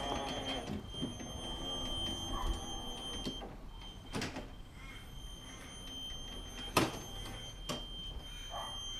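Radio-controlled toolbox cart driving, with a steady high whine and a few sharp knocks as it rolls across the patio.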